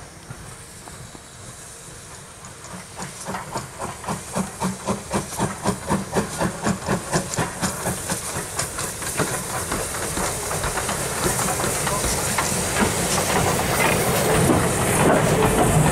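BR Standard Class 4MT 2-6-0 steam locomotive running light engine, its exhaust beating about three times a second as it approaches. The beats then fade into a steady hiss of steam that grows louder as the engine draws close.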